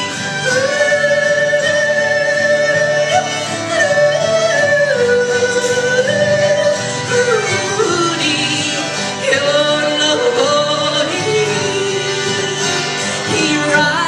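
Wordless yodeling over a bluegrass band's acoustic accompaniment, including guitar. The voice holds long notes, then steps and slides between pitches.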